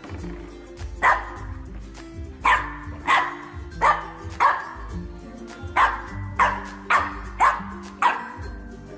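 French bulldog puppy barking at a plastic bottle: about ten short, high yappy barks in irregular bursts, over background music.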